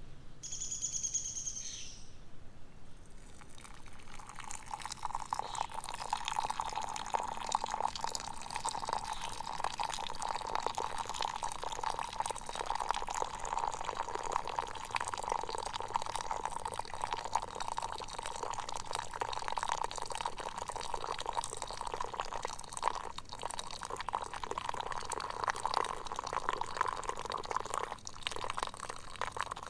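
A short bird call at the start, then, a few seconds in, water begins running and splashing steadily and keeps going.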